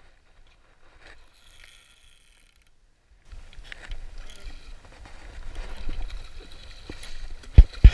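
Handling noise of a camera rubbing and bumping against the angler's hands and the fishing rod grip, starting about three seconds in after a near-quiet stretch, with two sharp knocks near the end.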